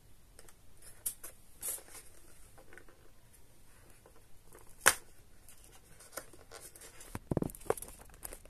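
Hands handling the cardboard and plastic packaging of a perfume gift set: scattered light clicks and rustles, one sharp click about five seconds in, then a run of rubbing and knocks near the end as a cardboard box is pulled open.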